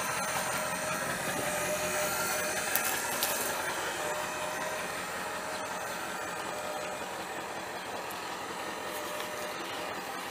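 Diesel engine of a 2003 Ford F550 utility truck, a 7.3L V8 turbo diesel, running steadily with a faint whine over it. A couple of sharp clicks come about three seconds in.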